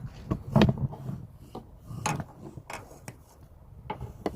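Hands working on the parts of a home-made smoke tester: irregular knocks and scraping rubs, the loudest about half a second in.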